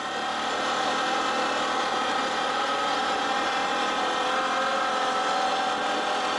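Off-road vehicle engine running at a steady speed, with a steady multi-toned drone. It rises in level over the first second, then holds steady.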